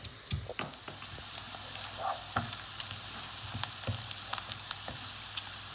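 Chopped onions sizzling in hot oil in a pan, frying toward light golden brown, with scattered clicks and knocks from a spoon stirring them against the pan.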